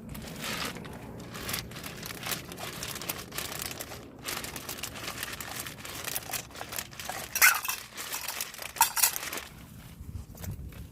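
Crinkling and rustling of something being handled by hand, with two sharper crackles about 7.5 and 9 seconds in.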